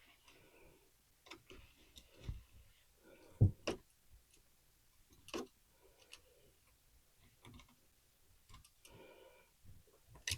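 Scattered small clicks and taps of a screwdriver and stiff old wires working at the terminals of an old wall light switch being loosened for removal, with a louder double knock about three and a half seconds in.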